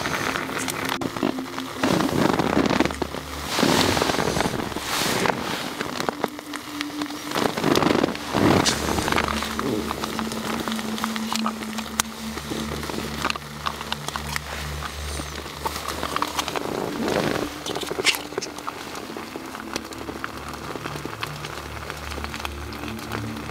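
Cloth rustling and swishing as hands move about, with scattered small clicks and taps of gear being handled around a camp stove. Under it run soft, low sustained background-music notes that change every few seconds.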